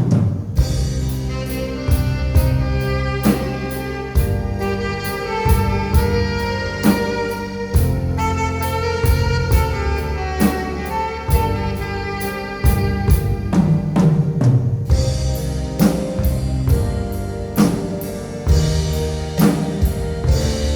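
Live instrumental band: an alto saxophone plays the melody over keyboard accompaniment and a drum kit keeping a steady beat.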